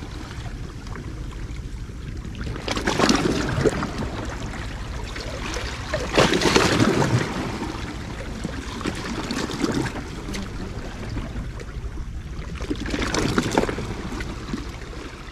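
Small sea waves washing and splashing against breakwater rocks, a steady wash with three louder surges a few seconds apart.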